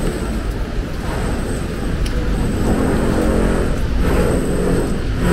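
Road traffic on a city street: a steady rumble of vehicles passing close by, with an engine's hum coming up louder from about halfway through.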